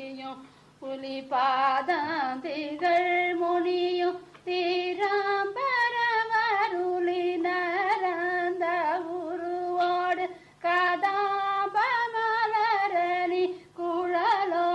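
A woman singing a Carnatic devotional song, drawing out long ornamented notes with wavering pitch, with short breaks for breath a few times.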